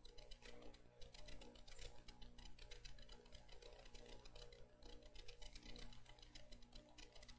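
Near silence: faint room tone with a steady low hum and a soft, rapid, irregular ticking.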